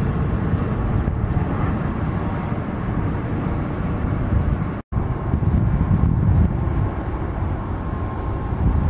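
Jet engines of cargo airliners on final approach: a steady low rumble with a faint whine. A split-second dropout just before five seconds in, where two recordings are joined, then the jet rumble carries on.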